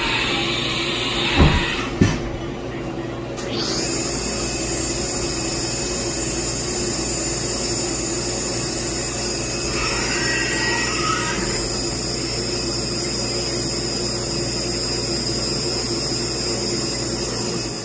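A workshop machine running steadily with a low hum. A high-pitched whine rises in about three and a half seconds in and then holds steady. There are a couple of sharp knocks in the first two seconds.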